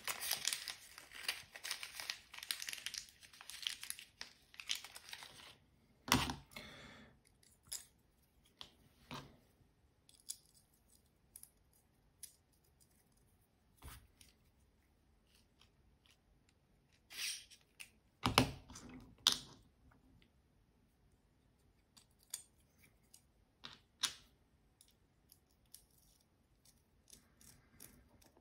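Small plastic zip bag of screws crinkling and rustling as it is opened, for about five seconds. Then scattered light clicks and knocks of carbon-fibre frame plates and small screws being handled, with sharper knocks about 6 s and 18 s in.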